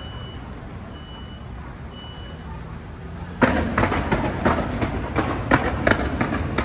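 Fireworks start going off a little past halfway: a sudden loud volley of sharp bangs and crackles that keeps going densely. Before that, a high electronic beep repeats about once a second over a low rumble.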